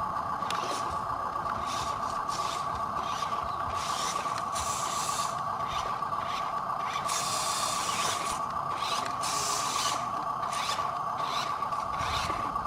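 A radio-controlled model truck's electric motor and gearbox whining steadily at one pitch, with repeated short bursts of scraping, rasping noise, a few of them drawn out for about a second.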